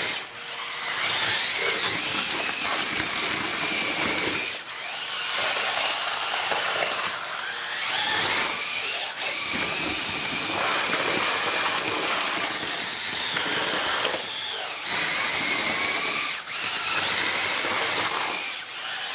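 Cordless drill turning a spiral paddle mixer through wet concrete in a plastic bucket. The motor whines in long runs, its pitch rising and shifting with the trigger and cutting out briefly several times.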